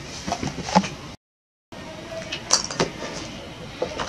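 Irregular knocks and clinks as a baby monkey handles and tips over an empty metal formula milk can and a plastic box, with a half-second break of total silence about a second in.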